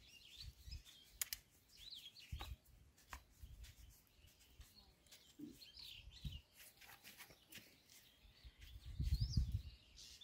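Small birds chirping in short high calls on and off, over light clicks and knocks of plastic pipe fittings being handled. About nine seconds in, a louder low rumbling bump.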